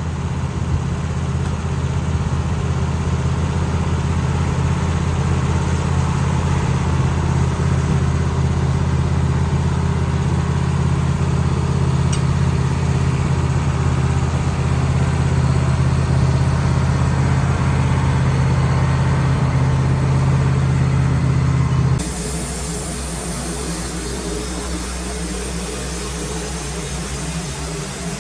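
Wood-Mizer LT15 bandsaw mill's engine running steadily with a deep, even hum. About 22 seconds in the sound changes abruptly: the low hum drops away and a thinner, hissing noise remains.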